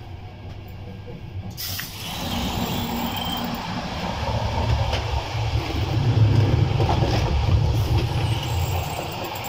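Running noise of a moving passenger train heard from the coach vestibule: a steady low rumble of wheels on rails that jumps suddenly louder and brighter about a second and a half in, as the walker moves through an automatic door toward the gangway. The rumble builds to its loudest in the middle, then eases slightly.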